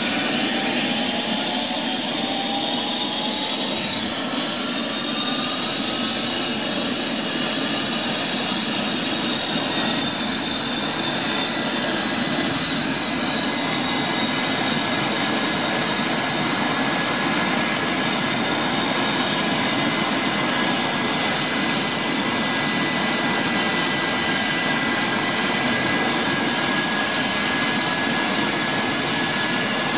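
Air ambulance helicopter running on the ground with its turbine engines spooling up: several whines rise in pitch over the first part, then settle into a steady high whine over a loud, dense rushing of engines and rotor.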